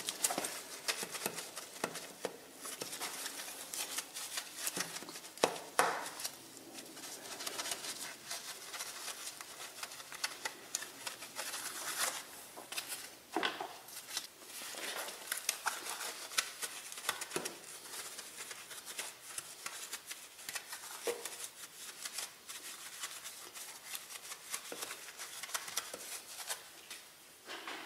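A wheel brush scrubbing a foam-covered alloy wheel: scratchy, hissing bristle strokes with irregular sharp clicks as the brush knocks against the spokes.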